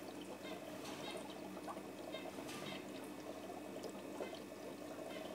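Faint, steady bubbling and trickling of water from an aquarium sponge filter, full of small irregular pops, with a steady low hum underneath.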